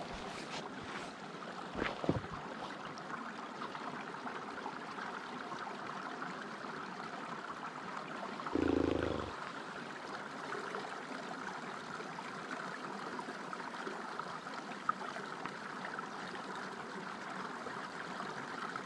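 Small spring water trickling steadily out of a rocky hole in moorland turf while a water bag is held in the flow. A short knock about two seconds in and a brief, louder low bump around nine seconds in break through the running water.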